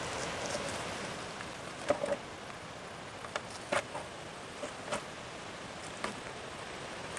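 Channel catfish being skinned with skinning pliers: a few short, sharp clicks and snaps, scattered irregularly, over a steady outdoor hiss.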